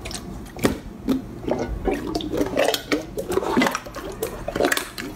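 Thick slime being poked and kneaded by hand, with irregular wet squelches broken by many sharp little clicks and pops.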